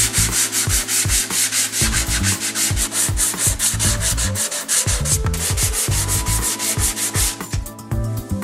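Sanding on a car bumper: a dense hiss of quick sanding strokes that breaks briefly about five seconds in and stops suddenly near the end. Electronic background music with a steady beat plays underneath.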